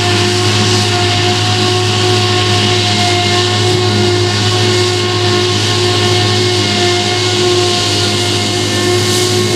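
Claas Jaguar 970 self-propelled forage harvester chopping rye under load: engine, cutterhead and blower running together in a steady, loud drone with a constant whine over a rushing hiss. The John Deere 6215R tractor pulling the trailer alongside runs with it.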